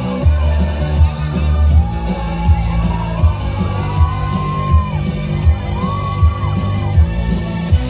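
Loud performance music with a heavy, steady bass beat and a voice singing over it.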